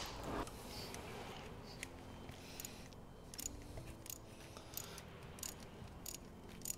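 Faint, irregular small clicks and taps, a dozen or so, from hand work with small metal parts and tools.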